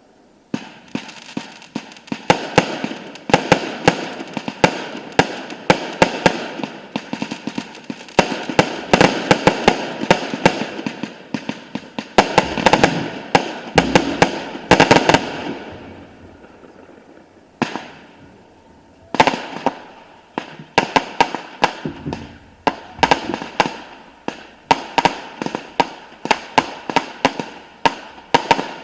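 Fireworks display: rapid, dense volleys of sharp bangs and cracks. They thin out about two-thirds of the way through, then resume in a fresh rapid run about three seconds later.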